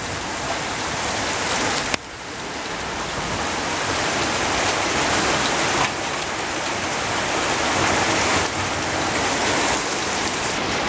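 Heavy rain mixed with small hailstones pelting down on grass, paving and garden plants: a dense, steady downpour, with a brief dip in level about two seconds in.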